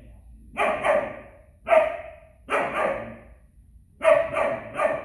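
Young German Shepherd barking in a series of loud, sharp barks, about one a second, then a quicker run of three near the end: fearful barking at an unfamiliar adult dog.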